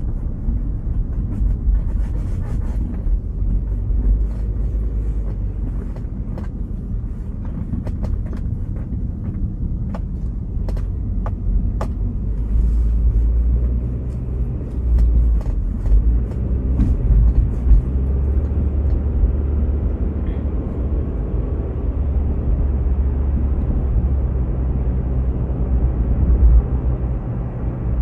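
Car driving, heard from inside the cabin: a steady low rumble of road and engine noise, with a few faint clicks in the first half.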